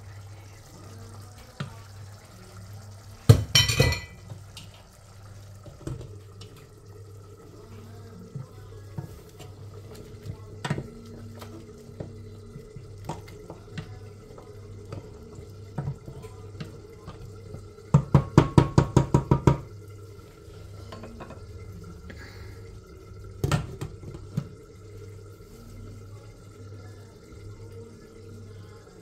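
A metal spoon clatters and scrapes against a steel cooking pot as spices are stirred into simmering chicken. There is a loud clatter a few seconds in and a quick run of about a dozen metallic taps about two-thirds through, over a steady low hum.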